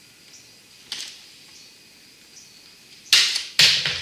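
Rubber tubing and scissors handled on a workbench: a faint click about a second in, then two loud, brief scraping noises near the end.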